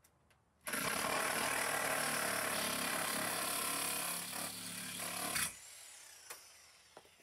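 Cordless reciprocating saw running as it cuts into the sliding door frame, stopping abruptly about five seconds in as its blade breaks, followed by a couple of faint clicks.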